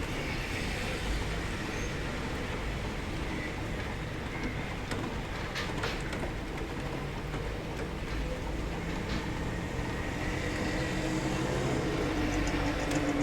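Steady rain heard from indoors, over a low rumble of traffic. A vehicle engine rises near the end.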